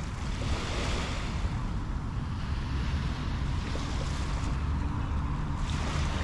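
Small sea waves washing onto a sandy shore, the hiss swelling and fading a few times, over a steady low rumble of wind on the microphone.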